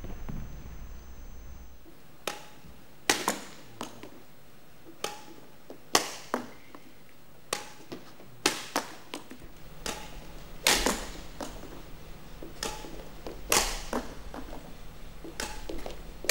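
Badminton rackets striking shuttlecocks in net-kill practice: about fifteen sharp cracks at uneven intervals, each with a short ring in the hall.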